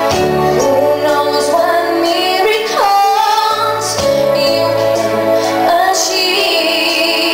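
A female vocalist singing a slow ballad into a microphone over instrumental backing, amplified through a PA speaker. About three seconds in, her voice slides down into a long held note.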